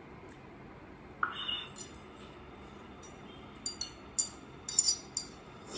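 Chopsticks clinking against a ceramic plate while serving noodles, several sharp clinks in quick succession over the second half. A short scuffing sound about a second in.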